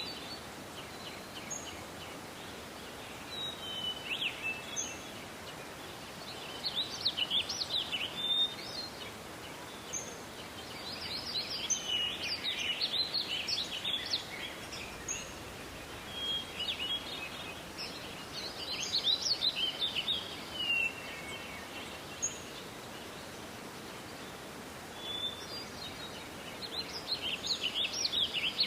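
Songbirds singing in a forest: short phrases of high, rapid twittering song come every few seconds, some overlapping, over a steady soft background hiss.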